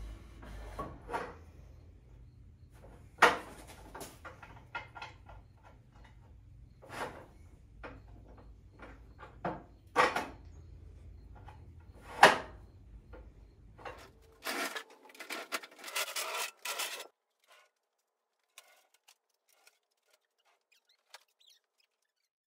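Scattered knocks, clicks and rubbing as parts of a ShopSmith Mark V multipurpose woodworking machine are handled and adjusted, with a short flurry of clatter about fifteen seconds in.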